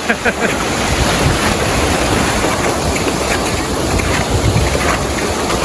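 Wind buffeting the microphone: a steady, loud rumble heaviest in the lows, with a few faint short crunches on top.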